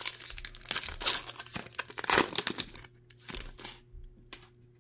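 Foil wrapper of a 2024 Prestige Football trading-card pack being torn open and crinkled: a dense run of sharp crackles for about three seconds, loudest just past two seconds in, then a few softer crackles.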